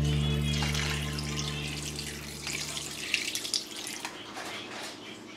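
Background music fading out over the first three seconds, then water splashing and dripping at a kitchen sink, with irregular small knocks.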